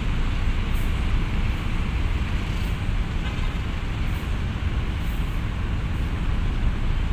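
Coach bus diesel engine running steadily as the bus crawls down a ferry's steel ramp, a continuous low rumble.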